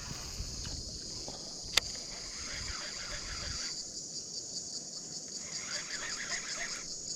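Insects chirring: a steady high buzz that pulses rhythmically in the second half. A single sharp click comes a little under two seconds in.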